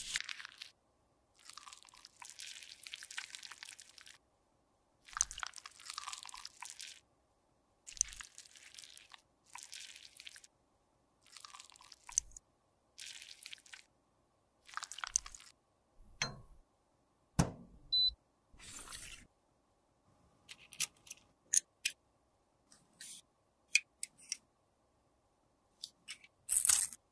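Close-miked scraping and rubbing as a spatula digs soft lipstick out of its tube, with tissue paper rustling, heard in short separate bursts with silences between. A few sharp clicks and knocks come a little past the middle.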